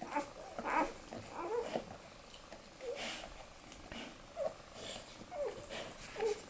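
Newborn Australian Shepherd puppies nursing, giving short soft squeaks and grunts at irregular moments, with brief wet smacking sounds.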